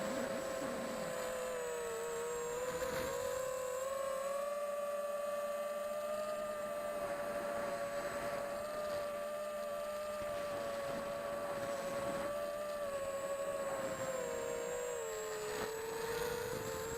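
E-Turbine 250 v2 racing quadcopter's motors and propellers whining steadily, the pitch dipping briefly about three seconds in and again near the end.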